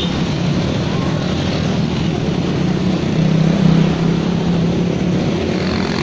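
Motorcycle and scooter engines running as a stream of bikes rolls slowly past in traffic: a continuous mixed engine drone that swells a little about three seconds in.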